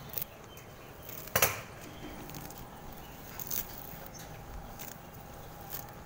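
Grass being plucked and torn up by hand: quiet rustling with a few short snaps, and one brief louder sound about a second and a half in.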